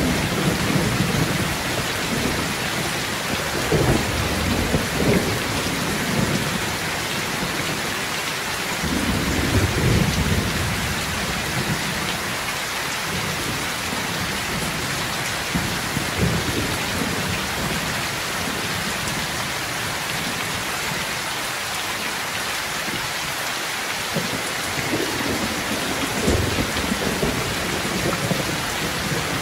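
Heavy rain pouring steadily, with low rumbles of thunder swelling and fading several times.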